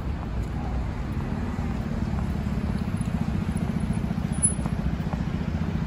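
Steady low rumble of road traffic on a city street, with a fast flutter in it from about two seconds in.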